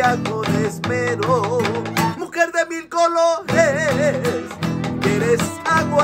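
Latin American-style music with acoustic guitar and a melody line with vibrato, no lyrics sung; the accompaniment drops out for a moment about two seconds in, leaving the melody alone, then comes back.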